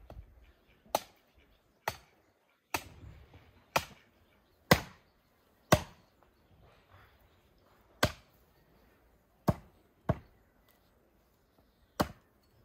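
Hatchet chopping bone-in bull meat on a wooden tree-stump block. About ten sharp chops, mostly about a second apart, with a longer pause midway.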